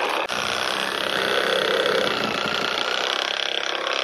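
Reciprocating saw running steadily with its blade cutting into an old roof timber, dipping briefly just after the start.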